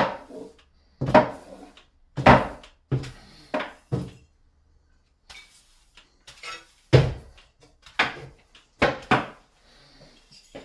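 Repeated sharp knocks and clatters of hard objects, roughly one a second, with a pause of about a second midway.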